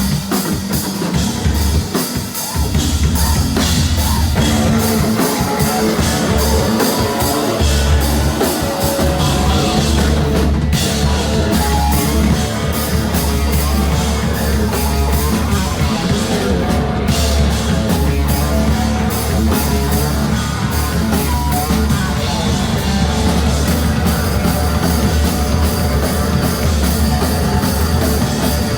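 Live rock band playing a loud song on drum kit and guitars, the full band coming in and getting louder about two to three seconds in.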